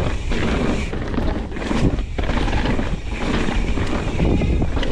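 Mountain bike riding down a dirt trail as picked up by a GoPro: a dense rumble of wind on the microphone and tyres on the dirt, with frequent clatter from the bike going over rough ground.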